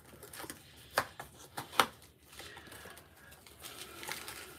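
Handling noise: three sharp clicks or taps about a second in, the last the loudest, then soft rustling.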